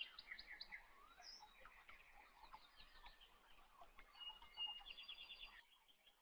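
Faint birdsong: several short chirps and whistled notes, with a quick trill of repeated notes a little past the middle, fading out near the end.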